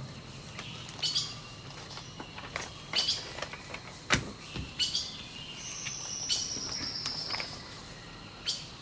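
Birdsong: scattered short chirps, with one longer whistle falling slightly in pitch about six seconds in. Several sharp clicks fall among the calls, the loudest about four seconds in.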